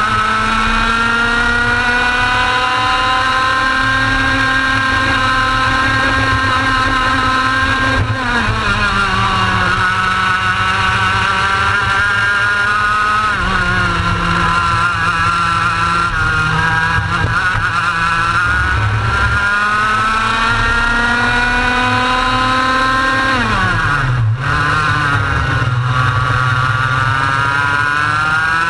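Onboard sound of a TAG racing kart's two-stroke engine at racing speed, its pitch climbing steadily along the straights and dropping sharply three times as it slows for corners, then climbing again.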